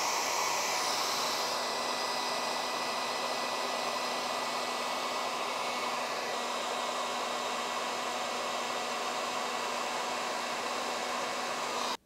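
Electric heat gun blowing hot air steadily with a faint hum, shrinking heat-shrink tubing over a cable joint.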